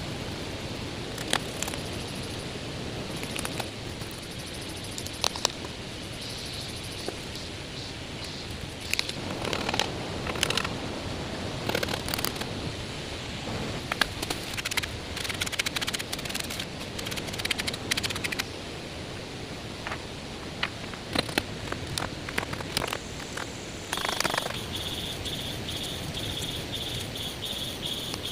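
Rustling with scattered sharp snaps and clicks, as of branches and leaves being handled, over a steady outdoor hiss. About three-quarters of the way in, an insect starts a fast, even, pulsing high-pitched trill.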